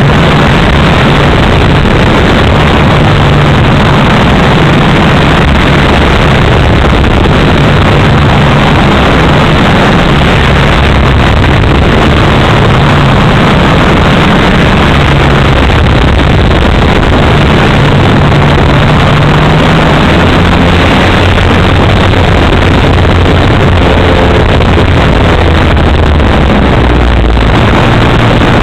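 Gasoline engine of a large radio-controlled aerobatic plane running in flight, heard from an onboard camera with heavy wind rush over the microphone. Its note drops lower about twenty seconds in as the throttle comes back.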